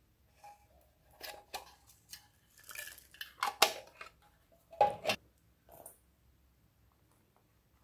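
Hard plastic pumpkin-shaped container being handled and opened over a glass bowl: scattered clicks and knocks, the sharpest about three and a half and five seconds in.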